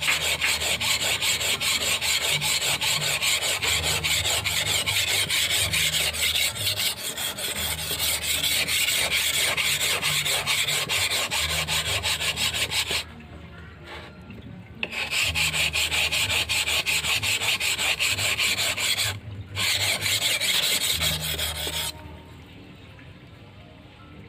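An A88 steel golok blade is stroked fast back and forth on a Yudistira Pacitan natural whetstone, making a steady gritty rasping grind. The strokes pause for about two seconds past the middle, break again briefly, and stop a couple of seconds before the end. The stone still grinds audibly on this steel rather than skating slick, a sign that it is still cutting.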